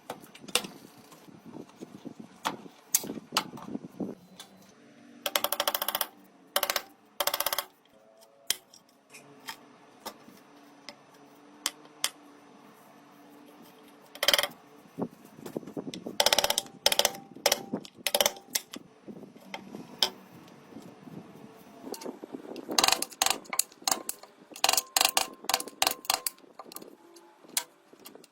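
Hand-tool work on an old fire bellows: irregular clicks, taps and knocks of small tools and parts, with a few short scraping strokes partway through.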